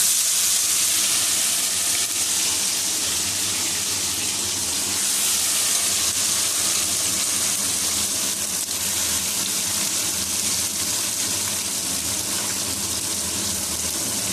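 Marinated chicken pieces sizzling in hot oil in a kadai (wok), just after being tipped in: a loud, steady sizzle.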